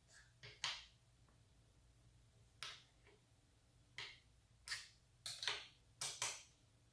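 Irregular sharp clicks and light knocks, about ten of them, from hand work on a motorcycle throttle lock and its parts at the handlebar. The clicks come closer together in the last two seconds.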